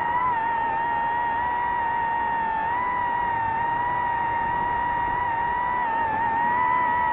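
DJI FPV drone's motors and propellers whining at one steady pitch that wavers slightly.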